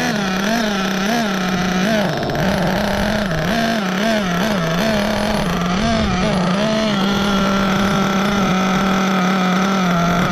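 O.S. nitro RC engine running during its break-in, its high-pitched note wavering up and down for the first several seconds, then holding steadier.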